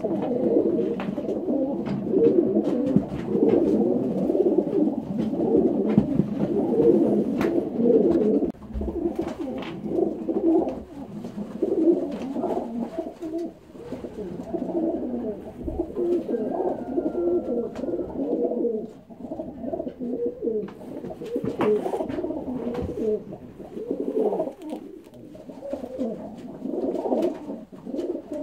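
Racing pigeons cooing continuously, their overlapping coos filling the whole stretch, with scattered sharp clicks over them.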